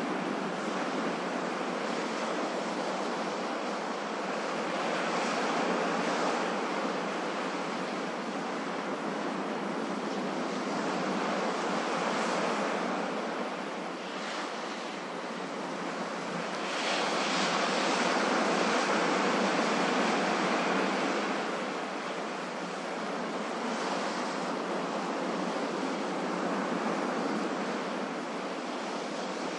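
Ocean waves breaking and washing on a shore in a continuous rush, swelling and ebbing every few seconds, with the biggest swell about two-thirds of the way through.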